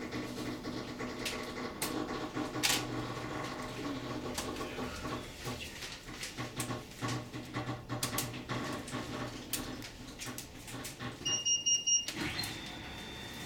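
Funicular car running up its track: a steady rumble and hum with irregular clicks and knocks from the wheels on the rails. Near the end a high pulsed electronic beep sounds, followed by a steady high tone.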